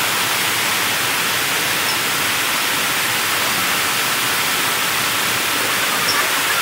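Loud, steady rushing noise, even and unbroken, spread from low to very high pitches.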